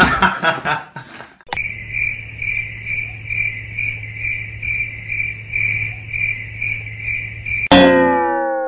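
Cricket chirping, a steady high chirp pulsing about twice a second over a low hum, starting and stopping abruptly. Near the end it gives way to a loud falling whistle-like glide.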